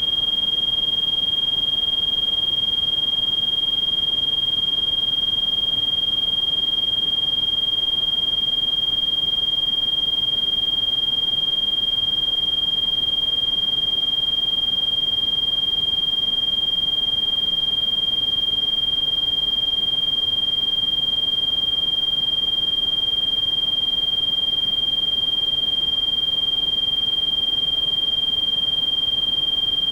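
Synthesized tinnitus-masking sound: a steady, high-pitched electronic sine tone a little above 3 kHz held unbroken over a constant bed of pink noise hiss.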